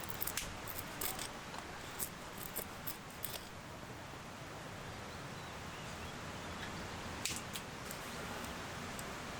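Scattered short, sharp clicks and snips, a quick cluster in the first few seconds and a couple more past the middle, over a steady low hiss.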